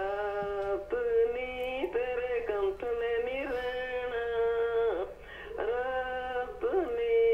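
A woman singing a Punjabi song unaccompanied, in long held notes that bend and step from one pitch to the next.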